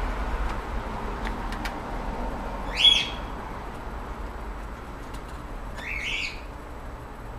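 Two short, high bird chirps about three seconds apart, over a steady low background rumble.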